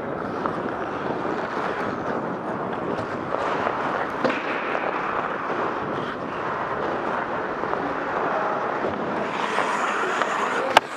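Steady rushing noise of a hockey player skating: ice skate blades scraping the rink, with air rushing past the helmet-mounted camera. A sharp click about a second before the end.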